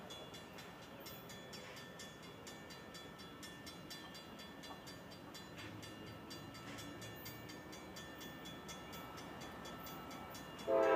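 Railroad grade-crossing warning bell ringing steadily and faintly in a quick even rhythm while the gates are down. Just before the end a freight locomotive's air horn starts a loud blast for the crossing.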